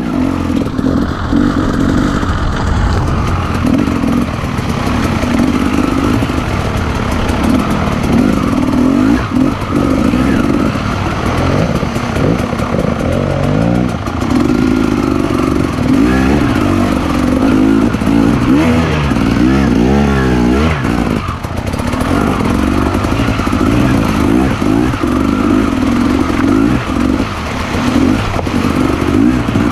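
Trail motorcycle engine running continuously, its revs rising and falling, with a few quick rev glides about two-thirds of the way in.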